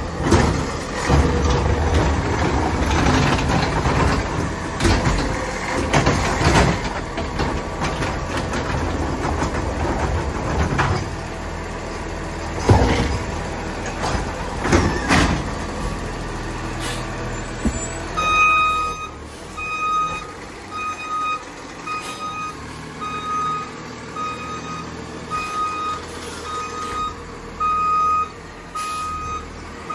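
Battle LET2 garbage truck with a McNeilus ZR automated side-loader body, working loudly with a heavy running rumble and repeated sharp knocks and clatter. Then, about two-thirds of the way in, it goes quieter and its backup alarm beeps steadily about once a second as the truck reverses.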